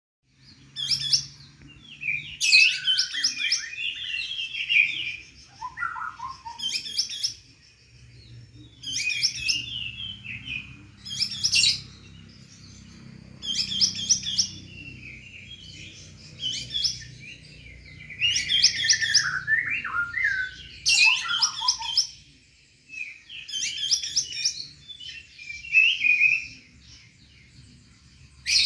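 A songbird singing short, rapid, warbling phrases, repeated every few seconds with brief pauses between, over a faint low hum.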